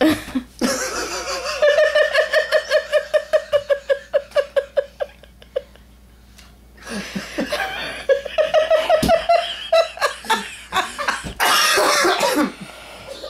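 A person laughing hard in rapid repeated bursts, several a second. The laughter stops for about a second just before the middle, then starts again.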